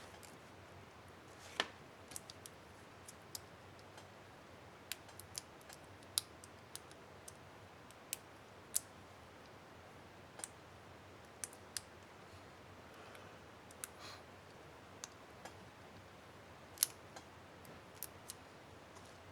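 Irregular sharp, small plastic clicks and snaps from an HP DV4 laptop keyboard's Enter keycap and its retainer clips being handled and fitted, with a louder snap about a second and a half in and another near the end.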